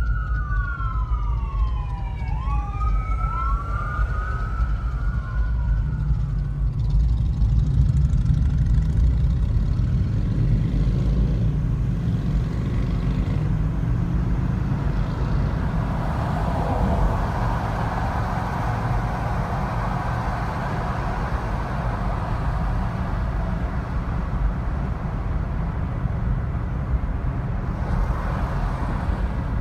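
A car driving in city traffic, with a steady low road rumble. A siren wails up and down twice in the first few seconds and fades away. A rushing road noise grows in the second half.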